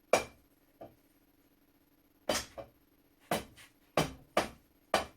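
Hammer tapping a metal punch against the rusted parts of an antique flintlock shotgun to free the barrel from its wooden stock: about nine sharp knocks, the first the loudest, coming closer together in the second half.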